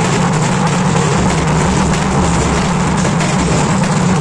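Loud, unbroken din of traditional drums beating rapidly, mixed with crowd noise.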